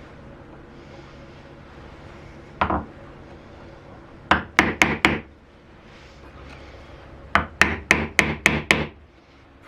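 Mallet blows on wood in hand-tool joinery: a single strike, then a quick run of four, then a run of about seven evenly spaced strikes.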